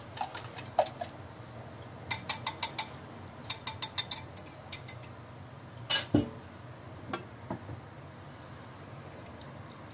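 Wire whisk beating eggs in a glass jug, clinking against the glass in quick runs of strokes, then a single louder knock about six seconds in.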